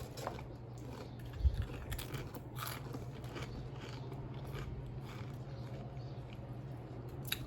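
A person biting into and chewing Pringles Dill Pickle potato crisps, with a run of irregular crunches.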